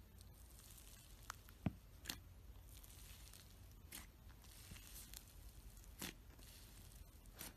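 Soft clay pressed and poked by fingers into clear slime, giving faint squishy sounds and a handful of sharp little pops and clicks spread a second or two apart, the loudest just under two seconds in.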